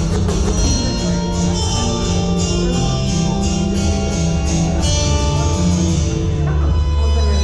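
Loud bass-heavy dance music from a DJ set, with a strong sustained bassline and a steady percussive beat.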